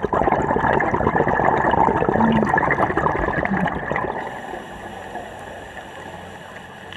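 Scuba diver exhaling through a regulator underwater: a burst of rushing, crackling bubbles for about four seconds, then dying down.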